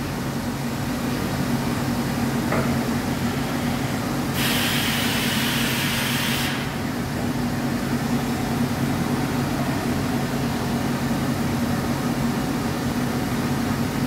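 Steady hum of pneumatic machinery running. About four seconds in comes a hiss of compressed air lasting about two seconds, which then cuts off.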